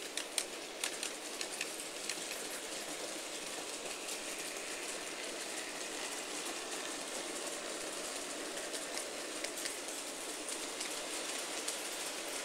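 N gauge model trains running on the layout: a steady hiss of their small motors and wheels on the track, with a cluster of sharp clicks in the first couple of seconds and a few more later on.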